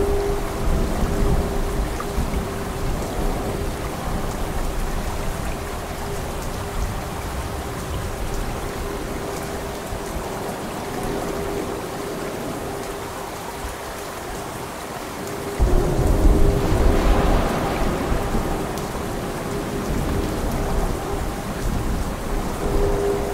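Steady heavy rain with thunder: a low rumble near the start, then a sudden, louder peal of thunder about two-thirds of the way through that rolls on for a few seconds.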